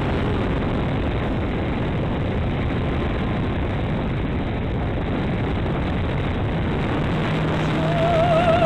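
Steady roar of wind and airflow buffeting the microphone of an RC plane in flight, with no clear motor tone standing out. Near the end, music with a wavering sung or held melody comes in.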